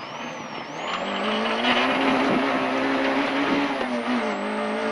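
Peugeot 106 Rallye's 1.3-litre four-cylinder engine accelerating hard from a slow corner, its note rising over the first second or so and then holding high, with a brief dip near the end. A steady hiss of wind and road noise sits over it at the wheel-mounted camera.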